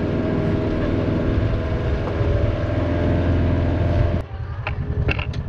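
Small utility vehicle's engine running steadily while driving, a strong low drone with an even hum of harmonics above it. About four seconds in, it cuts off suddenly and gives way to scattered short clicks and crunches.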